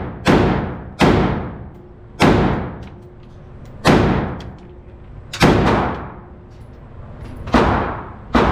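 M4 rifle firing six single shots, spaced one to two seconds apart, each followed by a long echoing tail.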